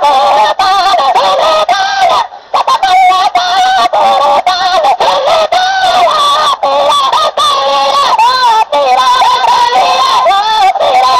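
Sindhi molood: voices singing a devotional melody with wavering, ornamented pitch, with a brief break in the singing about two seconds in.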